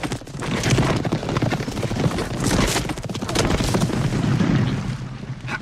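Many horses galloping together, a dense, loud, irregular pounding of hooves with a few sharper cracks.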